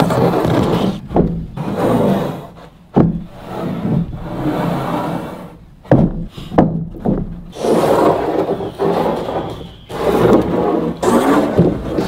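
Wooden 2x6 boards being slid, scraped and dropped onto a stack, with several sharp wooden knocks among the rubbing.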